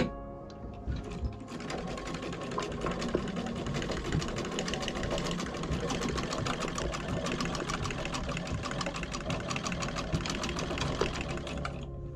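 Toyota sewing machine, almost 60 years old, stitching fabric: a fast, even mechanical clatter of the needle that starts a second or so in and stops near the end.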